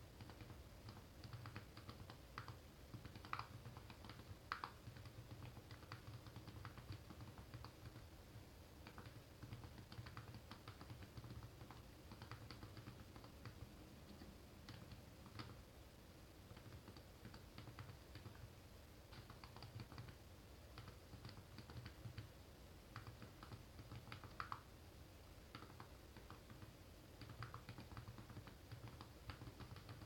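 Faint, rapid, irregular clicking of keys on the GPD MicroPC's small built-in keyboard, typed on with both hands as on a full-size keyboard, with a few louder key presses now and then.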